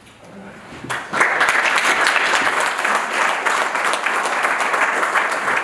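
Audience applause welcoming a speaker to the lectern, breaking out about a second in and holding steady.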